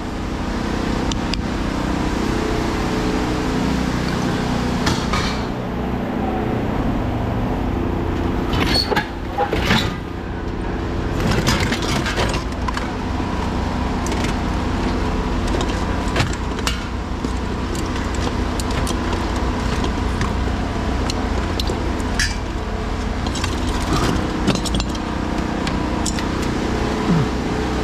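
Scrap being rummaged and pulled from a pickup bed: scattered metal knocks, clanks and rattles of wire and parts as a refrigeration compressor is lifted out, over a steady engine-like hum.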